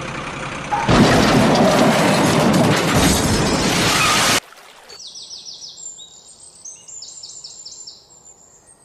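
A toy truck tumbling down a rocky bank and splashing into muddy water: a loud, noisy rush of splashing and clatter that lasts about three seconds and cuts off abruptly. Then faint bird chirps come in repeated runs.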